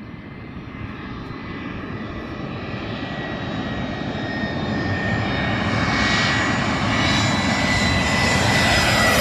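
Turbofan engines of a twin-engine jet airliner on final approach, growing steadily louder as the plane closes in: a rushing rumble with a steady high whine over it. Near the end the whine starts to drop slightly in pitch as the aircraft comes nearly overhead.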